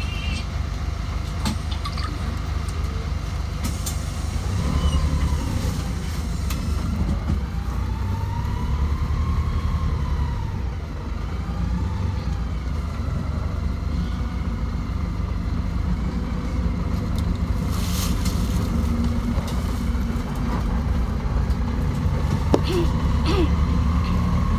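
Traffic at a bus station: minibus and car engines running and moving off, a steady low rumble, with a faint wavering tone in the middle and a few short clicks near the end.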